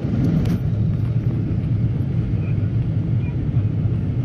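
Steady low rumble of an airliner's cabin during the descent to landing: engine and airflow noise heard from inside the cabin, with a few faint clicks about half a second in.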